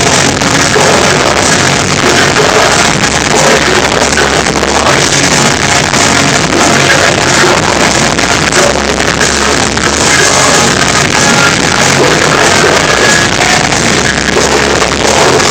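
A live melodic hardcore band playing loud distorted guitars and drums, picked up close to the stage. The recording is overloaded and harsh, with the sound crushed near full volume throughout.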